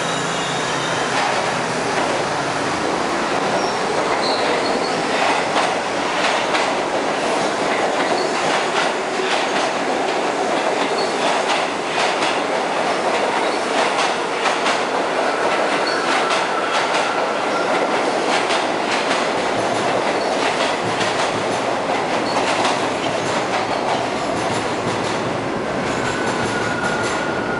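R68 subway train pulling out and running past along the platform: a steady, loud rumble of steel wheels with quick clicking over the rail joints. A faint high wheel squeal rises briefly twice, about halfway through and near the end.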